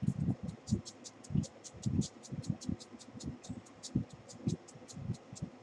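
Pump mist bottle of Mario Badescu facial spray spritzed rapidly over and over, about five short sprays a second, stopping just before the end, with soft knocks from handling.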